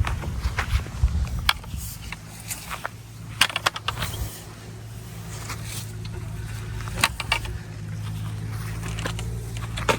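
A steady low hum with scattered sharp clicks and knocks, a few clustered together.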